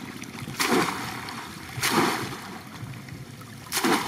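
A bamboo and wire fish trap being dunked and swished in shallow floodwater, splashing in three surges about a second and a half apart, with water running and sloshing between them.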